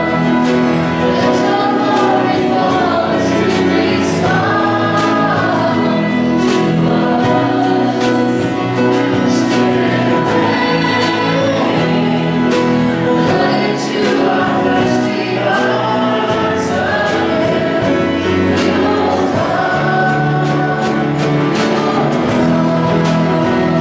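A live worship band playing a song: drum kit, electric and bass guitars and keyboard, with voices singing the melody together over a steady beat.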